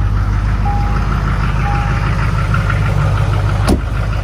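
2004 GMC Sierra dually's 6.6 L Duramax V8 turbodiesel idling steadily just after a cold start. A chime beeps three times about a second apart in the first two seconds, and a sharp click comes near the end.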